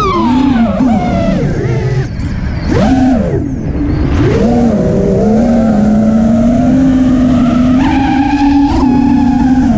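FPV quadcopter's brushless motors whining. The pitch drops in the first second and swoops sharply up and back down about three seconds in as the throttle changes, then holds a fairly steady tone for the last five seconds.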